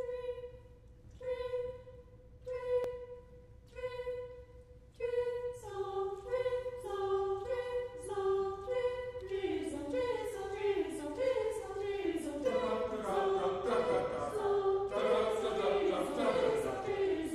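Unaccompanied mixed choir singing short detached notes imitating drizzle. At first a single pitch repeats about once every 1.3 seconds; from about five seconds in, more voices enter on other pitches and the overlapping short notes thicken into a dense, busier texture.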